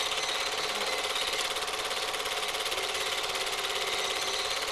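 Steady fast mechanical rattle of a Super 8 film projector running, heard on the film's transferred soundtrack.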